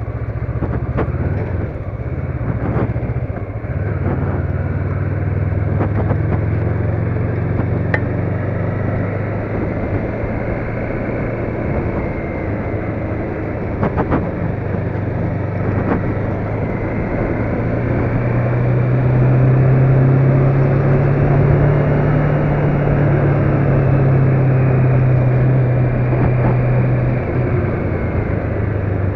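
Motor vehicle driving, with a steady engine hum and road noise and a few knocks from bumps. The engine gets louder and slightly higher in the later part, then drops off suddenly near the end.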